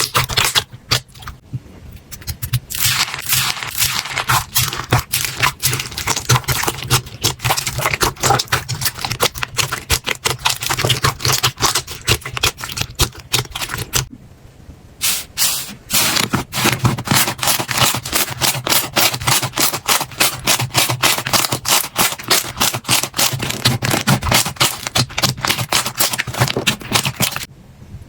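Slime being squeezed and worked, making rapid crackling clicks and pops, with short pauses about two seconds in and about halfway, stopping near the end.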